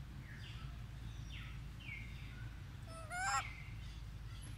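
A loud, short animal call that rises in pitch about three seconds in, after a few faint high chirps, over a steady low rumble.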